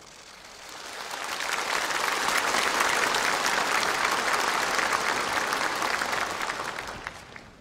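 A large crowd applauding, many hands clapping together. The applause swells in over the first two seconds, holds steady, then fades away near the end.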